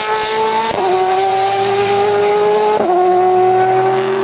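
Race car engine sound effect held at high revs, its pitch dropping twice, about a second in and again near three seconds, as it shifts up through the gears.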